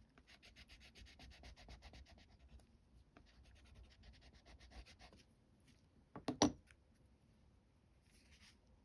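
Neocolor II wax crayon scribbling on rough cotton rag paper in quick back-and-forth strokes, about eight to ten a second, in two runs. A couple of sharp knocks about six seconds in are the loudest sound.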